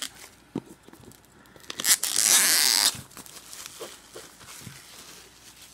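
Plastic shrink wrap being torn off a cardboard card-game box: one loud rip lasting about a second, about two seconds in, with light crinkling and handling clicks around it.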